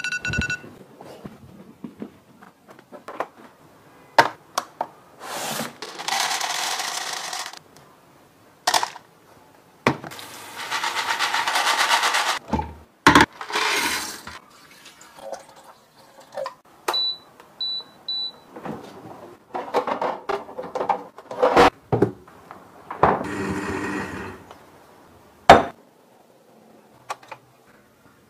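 A string of kitchen handling sounds: a short electronic beep at the very start, bursts of rustling and pouring, clicks and knocks of containers being set down, and dried soybeans and red dates poured into a glass blender jug. Three quick high beeps come about two-thirds of the way through.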